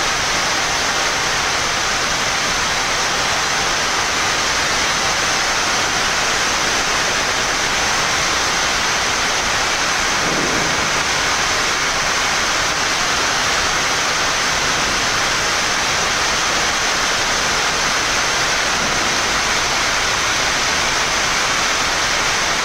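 Steady rushing air noise in a Boeing 787 flight deck during descent, an even hiss that holds at one level throughout.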